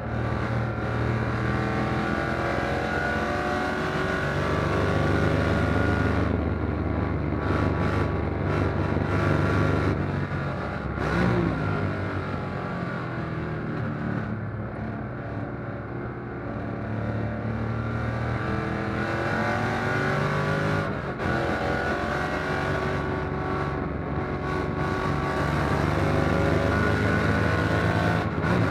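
Fuel-injected V8 of a 1957 Corvette race car at speed on track, heard from inside the cabin. The revs climb hard, fall away as it shifts or brakes, then climb again several times.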